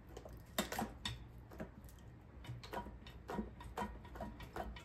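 Light metal clicks and taps, about a dozen at an uneven pace, from a long screwdriver working against the bare metal of an SR20DET engine during teardown. A low steady hum sits underneath.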